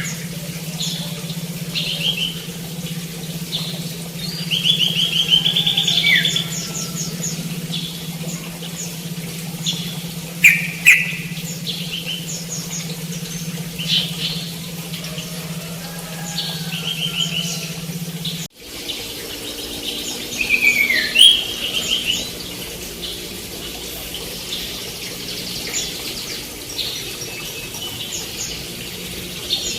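Several songbirds chirping and singing, with short repeated trills and quick falling whistles, over a steady low hum that cuts off abruptly partway through.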